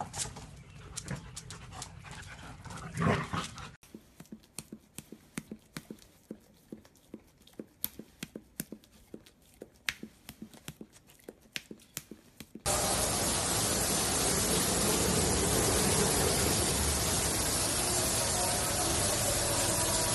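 Two dogs play-fighting, with whimpers and panting. Then a quiet stretch of irregular sharp clicks. Then a sudden switch to the steady, loud rushing noise of an automatic car wash.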